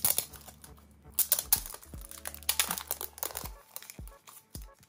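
Crinkling and rustling of the packaging of a set of 4x6 photo cards as it is handled and opened, in quick irregular strokes. Background music plays under it, with deep beats coming in over the second half.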